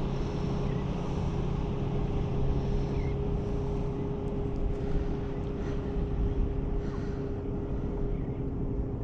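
A motor drones at a steady pitch over the rush of surf and wind.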